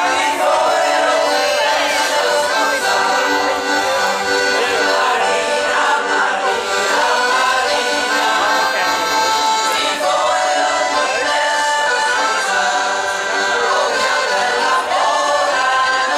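A mixed amateur choir singing a song in unison with accordion accompaniment.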